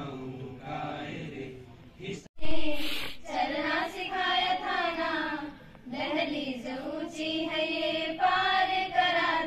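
A boys' group singing together briefly, then, after an abrupt cut about two seconds in, a group of schoolgirls singing a song in unison into a microphone, starting with a loud onset.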